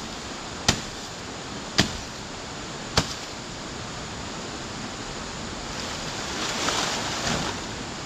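Steady rushing of river water, with three sharp knocks about a second apart in the first three seconds and a louder surge of water noise near the end.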